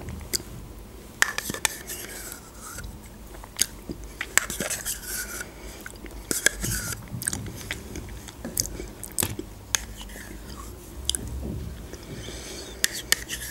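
Close-up eating sounds of yogurt spooned from small plastic cups with a metal spoon: wet mouth and lip noises, with many sharp clicks of the spoon scattered throughout.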